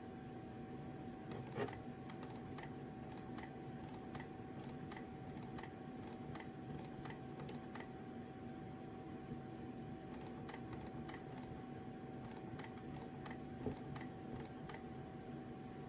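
Shutters of two Sony compact cameras, an RX100 VII and an RX100 VA, firing in runs of light, quick clicks, about three a second, with the shutter buttons held down. A faint steady tone sits underneath, and two louder knocks come about one and a half seconds in and near the end.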